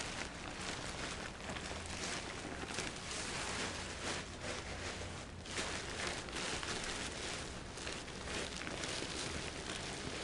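Deflated inflatable kite's fabric canopy and struts rustling and crinkling as it is rolled up from the leading edge, the rolling squeezing the air out. The rustle is steady with many small irregular crackles.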